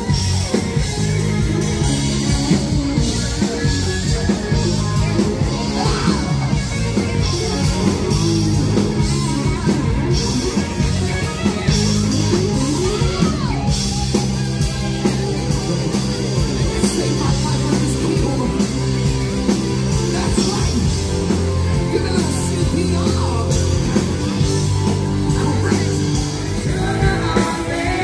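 Live band playing rock music with a singer.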